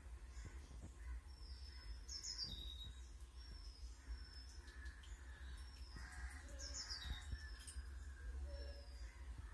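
Birds chirping faintly: short high whistled notes, each falling slightly in pitch, repeated about once a second, over a steady low rumble.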